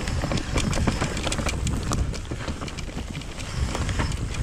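Mountain bike descending a steep dry dirt trail: tyres rumbling over the ground, with rapid clicks and rattles from the bike over bumps, and a low rumble of wind on the camera microphone.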